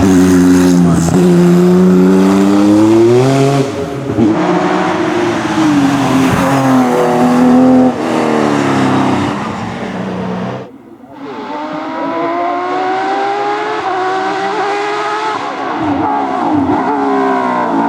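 Porsche racing car engine at full throttle, its pitch climbing and dropping repeatedly through gear changes and lifts. About two-thirds of the way through it drops away sharply, then comes back with the note rising steadily as the car accelerates.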